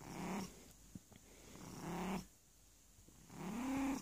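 Grey tabby cat giving three short, low meows, about a second and a half apart, the last one rising a little in pitch.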